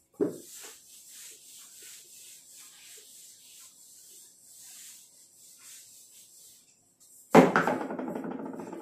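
Whiteboard eraser wiping the board in a run of quick, soft rubbing strokes. About seven seconds in, a louder pitched sound starts and fades.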